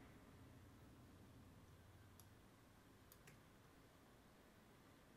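Near silence: room tone with a faint low hum that fades out about two seconds in, then a few faint clicks about two and three seconds in.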